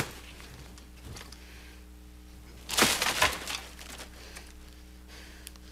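A brief burst of rustling and crinkling, from bedding and plastic snack wrappers, about three seconds in, over a faint steady hum.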